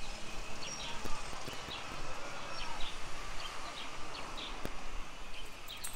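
Outdoor street background noise with many short high chirps and a few faint clicks.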